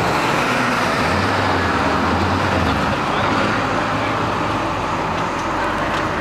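Lexus 1UZ-FE V8 in a lifted Toyota Tacoma, held at steady revs under load as the truck spins its tires in a burnout, with tire noise over a steady engine note that eases slightly about three seconds in.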